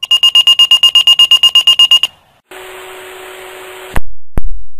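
Motorola Minitor fire pager alert: a fast, even run of high beeps, about ten a second, lasting two seconds. After a short pause the pager's receiver opens onto a steady radio hiss with a low hum, and two sharp clicks sound near the end.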